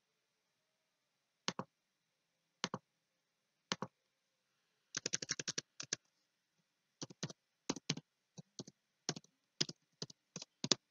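Three separate clicks about a second apart, then a quick rattle of keystrokes and irregular typing on a computer keyboard.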